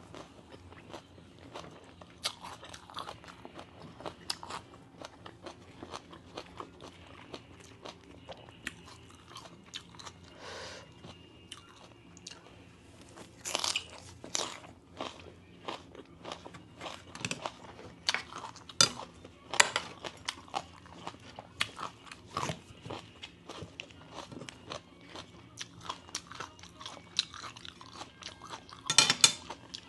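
Close-up eating sounds: a person chewing and crunching crisp fresh vegetables eaten with som tam (Thai papaya salad), irregular crisp crunches with a few louder ones midway and near the end.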